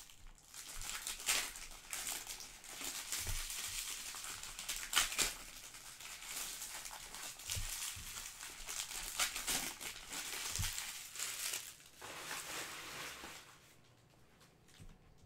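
Trading-card pack wrappers crinkling and rustling as packs of 2020 Panini Select soccer cards are ripped open by hand, with a few soft knocks against the table. The crinkling dies down about 13 seconds in.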